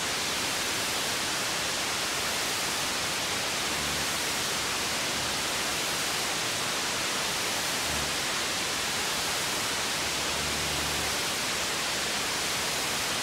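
Steady hiss of static noise, with a faint low hum coming in briefly three times.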